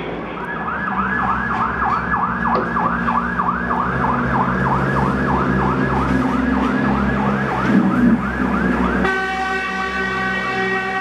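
Siren of a police water-cannon truck sounding a fast yelp, rising and falling about three and a half times a second over a low engine rumble. At about nine seconds it switches abruptly to a steady, continuous horn tone.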